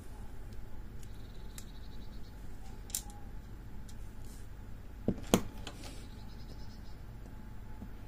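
Handling noise from a brass lock body being turned over in the hands and set down: scattered small clicks and faint rattles, with two sharper knocks close together about five seconds in.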